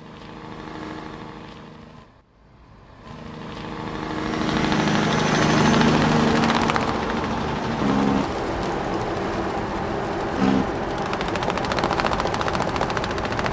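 A vehicle engine running with a rapid clatter, getting louder over the first few seconds and then holding steady.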